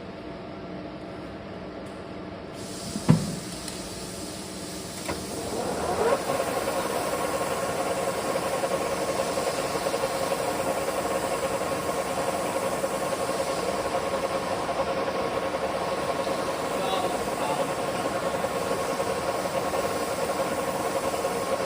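Metal lathe running, with a single knock about three seconds in. About six seconds in it gets louder and settles into a steady machine whine that holds until the end.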